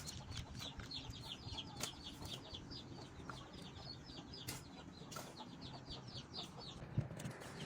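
A bird chirping in a rapid run of short, high, falling notes, about five or six a second, with a few sharp knocks.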